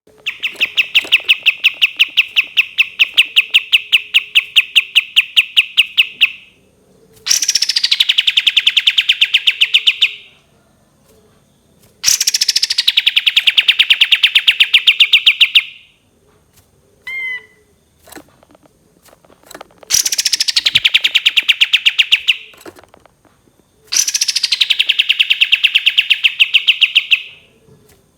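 Kapas tembak songbird singing: long, fast trills of rapidly repeated notes, each lasting a few seconds. Most trills start high and drop to a steady pitch, and they come five times with short pauses. Between the trills are a few brief chirps.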